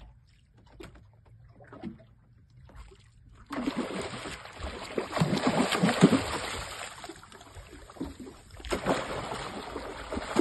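A large hooked fish thrashing and splashing at the surface beside a small boat, starting suddenly about three and a half seconds in, with the heaviest splashes around the middle and again near the end as it is gaffed.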